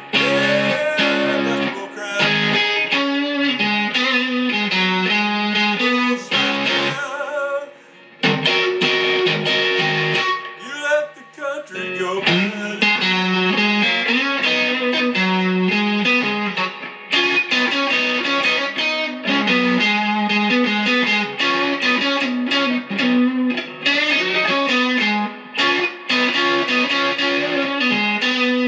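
Guitar playing an instrumental passage of a blues-style song, with a short drop in loudness about eight seconds in.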